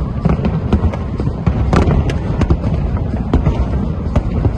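New Year's fireworks display: a quick, irregular run of sharp cracks and bangs, several a second, over a continuous low rumble of bursts.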